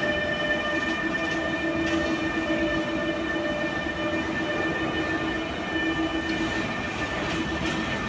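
Renfe class 253 (Bombardier TRAXX) electric freight locomotive passing close by at speed, hauling LPG tank wagons. The wheels rumble on the rails under several steady whining tones, and a few faint wheel clicks come near the end.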